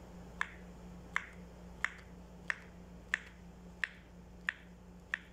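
Sharp kitchen-utensil clicks repeating evenly, eight of them at about three every two seconds, over a faint steady hum.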